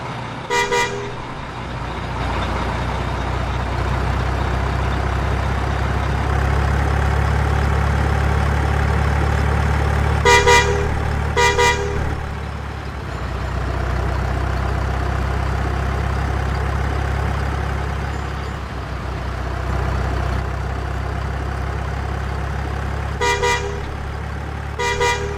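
Truck engine running steadily with a low rumble, broken by short horn toots: one about a second in, two around ten and eleven seconds in, and two more near the end.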